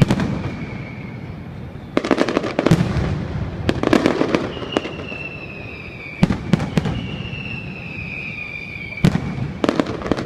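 Fireworks going off: clusters of sharp bangs and crackles every two to three seconds, with long whistles that slowly fall in pitch between the volleys.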